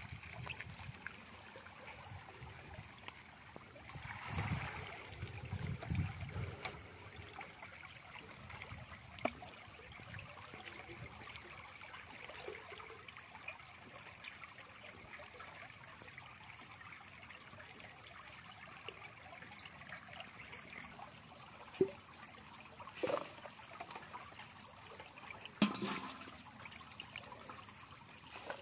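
Water trickling and dripping from a raised bamboo-framed lift net, with a few splashes about four to six seconds in and several sharp knocks or taps in the last third.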